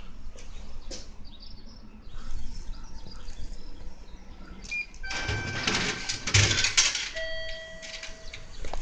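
Station platform train-approach warning chime starting about five seconds in. An electronic ringing with several tones comes first, followed near the end by a single held tone, signalling that a train is approaching the platform.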